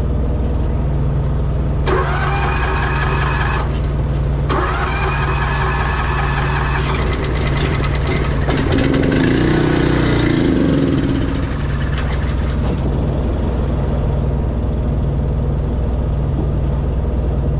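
A pony motor being cranked by its starter: two whining cranking spells of about two seconds each, then a lower, wavering spell around nine to eleven seconds in that dies away. The motor is hard to start. A steady idling engine runs underneath throughout.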